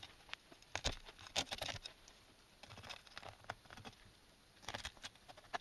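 Kitchen knife scraping the scales off a small pale chub on a cutting board, then cutting into it: faint, irregular scratches and light clicks.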